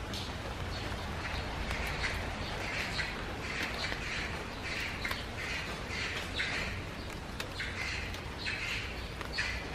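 A bird calling over and over in short calls, about two a second, over a low steady background rumble.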